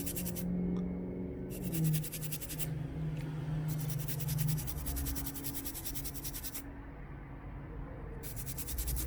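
Toothbrush scrubbing a water-damaged phone motherboard with isopropyl alcohol, in spells of rapid back-and-forth scratchy strokes with short pauses between them, to clear corrosion and rust.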